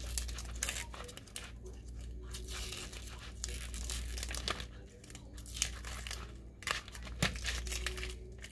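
Red adhesive vinyl being weeded from its backing sheet with a craft knife: the cut-away scraps peel off in spurts of crinkling and tearing, with a few sharp clicks.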